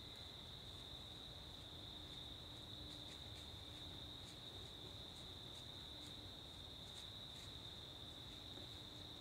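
Steady, unbroken high-pitched trill of an insect chorus, with faint scattered ticks above it.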